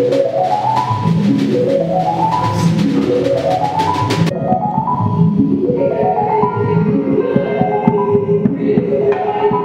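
Live improvised electronic band music: a rising melodic figure on keys repeats about every second and a quarter over drums. About four seconds in the cymbal wash cuts out, leaving the repeating figure with a held tone under it.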